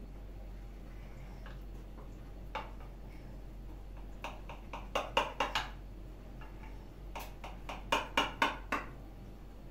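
Knife and cake server clicking and tapping against a plate while a slice of kedi dili cake is cut and lifted out. One click comes first, then two bursts of quick clicks a couple of seconds apart.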